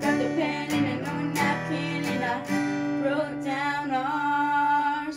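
Acoustic guitar strummed in a steady rhythm while a girl sings; about halfway through, the strumming gives way to a ringing chord under a long held, wavering sung note.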